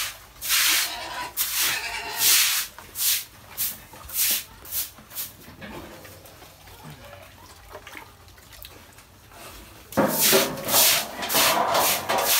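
A pen of piglets snuffling and snorting as they root and eat, heard as a string of short, irregular noisy snorts that grow louder and busier near the end.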